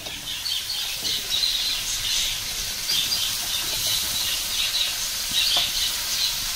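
Chopped leafy greens frying in hot oil in a kadai on a gas stove: a steady crackling sizzle as they are stirred and tossed with a spatula.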